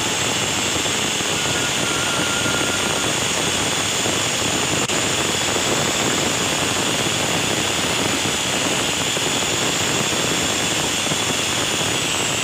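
Industrial flatlock sewing machine with an edge cutter running steadily at full speed as it stitches a bottom hem on knit fabric: a continuous loud whirring machine drone.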